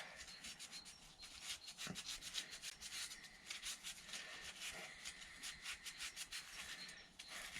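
Faint, quick rubbing and scrubbing strokes by hand on a small throttle-linkage part as it is cleaned.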